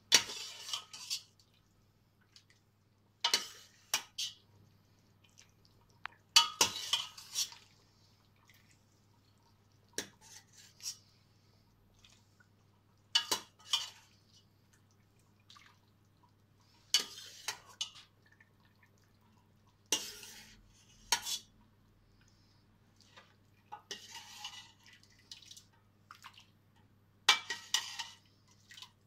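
Metal ladle clinking and scraping against a stainless steel pot as soup is scooped out and poured into a tureen, in short clusters every few seconds, with soup splashing and dripping.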